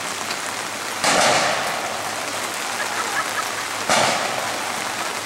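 Steady heavy rain falling, with two sudden loud bursts about three seconds apart.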